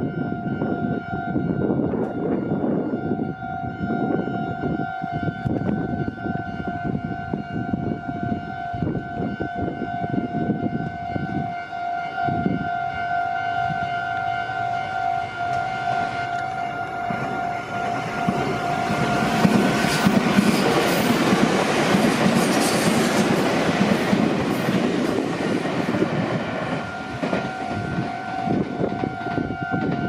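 Japanese level-crossing alarm ringing its steady two-tone 'kan-kan' while a Meitetsu electric train approaches. About 19 seconds in, the train passes over the crossing, and its louder wheel-on-rail noise covers the bell for several seconds before easing off.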